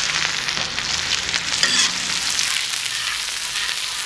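Chopped onions sizzling in hot oil in a pan, stirred with a spatula that scrapes now and then.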